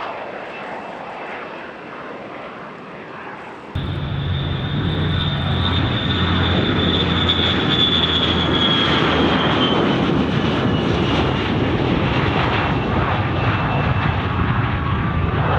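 Jet engine of a Boeing MQ-25 Stingray unmanned aircraft running at high power during its takeoff, a steady rush with a high whine that drifts slightly lower. About four seconds in it jumps suddenly louder and closer.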